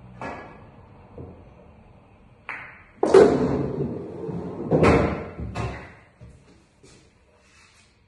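Billiard cue striking a ball, followed by balls knocking together and against the table's cushions. A run of knocks with the heaviest about three seconds in and another about five seconds in, ringing on before dying away about six seconds in.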